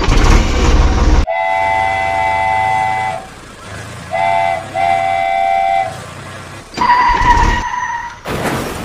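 Steam-train whistle sounding a long chord-like blast, then a short blast and a longer one, over a low fast rumble. A loud hissing rush opens it, and another comes near the end.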